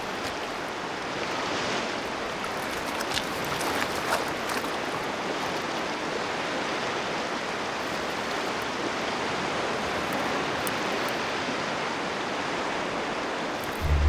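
Shallow rocky stream running steadily, water rushing over stones, with a few faint ticks scattered through it.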